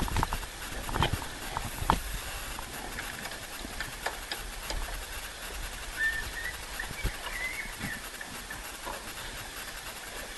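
Wind and water rushing on a helmet-camera microphone at a racing sailboat's bow, with a few sharp knocks of deck gear in the first two seconds and a short wavering squeak midway.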